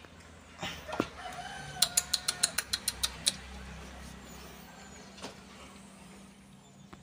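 A quick run of about ten sharp ratchet-like mechanical clicks lasting about a second and a half, over a long drawn-out animal call that holds one pitch.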